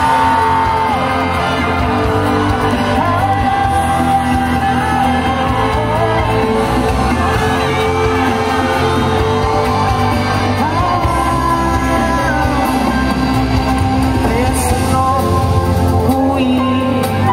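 Loud live band music, with guitars and drums playing and a voice singing over them.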